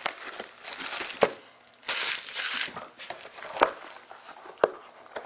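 Plastic shrink-wrap and a paper sheet crinkling and rustling as a card box is handled, in bursts, with a few sharp clicks, the loudest about a second in.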